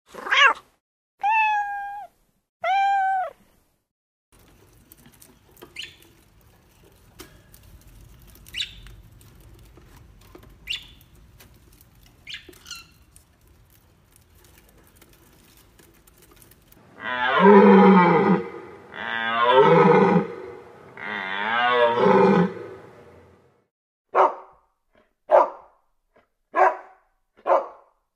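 A domestic cat meowing three times, then a lovebird's faint sharp chirps over a low hum. Three loud, drawn-out animal calls follow, then a dog barking about once a second.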